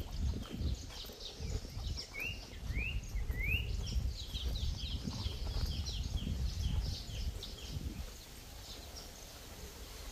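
Wild birds singing: three rising whistled notes about two seconds in, then a run of quick, high descending chirps. Beneath them an uneven low rumble, which eases about eight seconds in.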